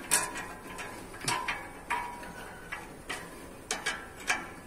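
Scattered sharp metallic clicks and clinks of hand tools on car parts, about eight at uneven intervals, a few with a brief ring.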